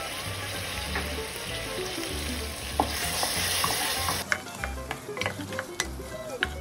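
Tomato paste, onions and potatoes sizzling in oil in an aluminium pressure cooker as a wooden spoon stirs them. About four seconds in the sizzle drops away and the spoon knocks and clicks against the side of the pot.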